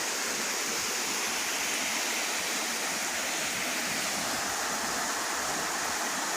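Steady rush of flowing water from a bush stream or waterfall: a constant hiss-like roar with no breaks.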